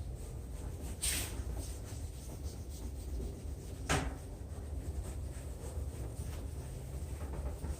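Fine-grit sanding pad rubbed by hand over a plastic headlight lens in repeated strokes, with two louder scrapes about one and four seconds in, over a low steady hum.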